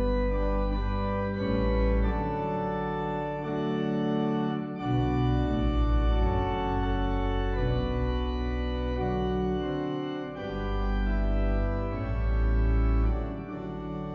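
Organ music: slow, sustained chords over deep bass notes, the harmony changing every second or two.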